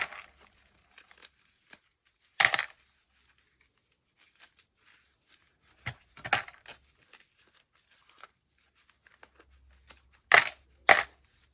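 A magnet being cleaned off by hand: short tearing, rasping noises a few seconds apart, the loudest two near the end.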